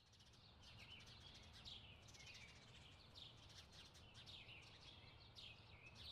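Faint, busy chirping of small birds: many short, quick calls that sweep down in pitch, coming irregularly several times a second over a low background hum.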